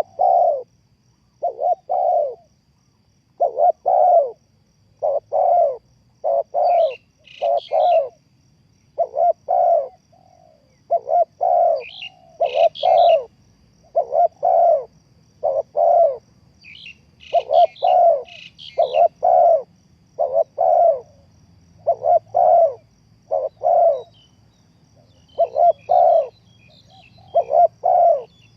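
Spotted dove cooing over and over, its low notes coming in short groups of two or three with brief gaps between. A few quick, high chirps from another small bird break in now and then.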